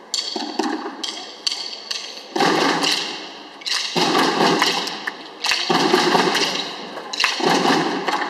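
A drum corps playing in unison. Short strokes come in the first two seconds, then longer loud bursts of rapid strokes about every one and a half seconds.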